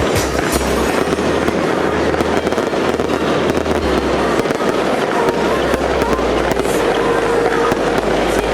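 Fireworks display: a dense, unbroken barrage of crackling and popping bursts that keeps up at an even loudness.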